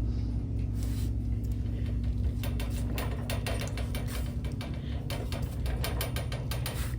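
Steady low hum of the room, with a quick run of clicks and rustles from about two and a half seconds in as items are handled.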